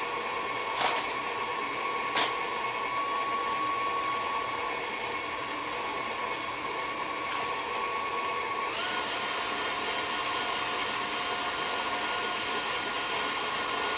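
KitchenAid stand mixer motor running steadily, beating butter in its stainless steel bowl; about nine seconds in its whine rises in pitch and holds higher. Two sharp clicks come about one and two seconds in.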